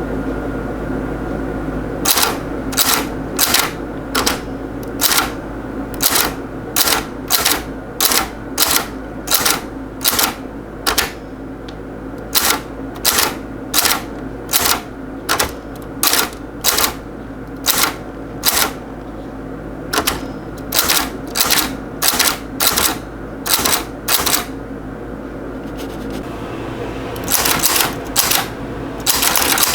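Typewriter keys striking one at a time at an uneven pace, about one to two strokes a second, with a denser run of strokes near the end. A steady low hum runs underneath.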